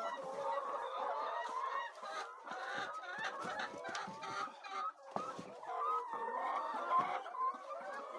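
A flock of laying hens clucking, many short calls overlapping without pause, with a few light clicks among them.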